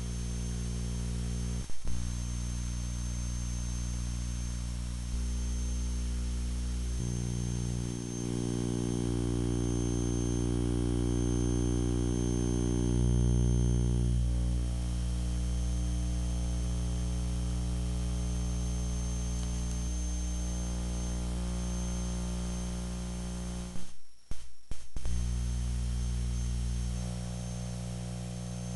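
Steady low electrical hum, a stack of buzzing tones whose pitch mix shifts several times, with a click about two seconds in and a brief crackling dropout about three-quarters of the way through.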